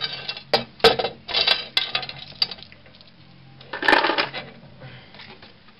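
Tools and a circuit board handled on a workbench: a run of sharp clicks and knocks, then a denser clatter about four seconds in, over a low steady hum.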